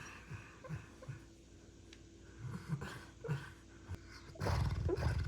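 Sleeping puppy dreaming: a series of short, low, muffled woofs and grunts, louder near the end.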